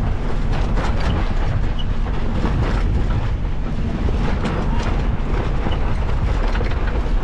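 A boat under way: a steady engine drone mixed with rushing water and wind buffeting the microphone, with irregular small knocks.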